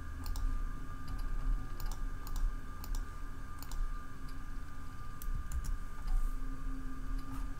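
Computer keyboard keys tapped one at a time as numbers are keyed into a calculator: scattered single clicks and quick little runs of two or three, over a faint steady hum.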